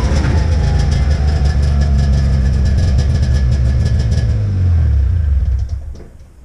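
An engine idling steadily, then fading away over the last second or so.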